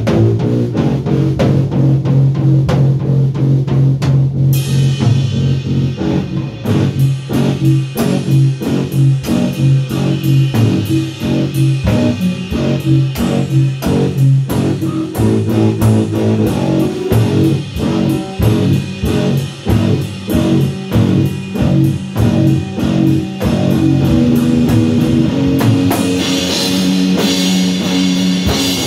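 Electric guitar and drum kit playing an instrumental rock passage together. The guitar plays alone at first; the drums come in about four seconds in with a steady beat, and near the end the cymbals ring out in a sustained wash.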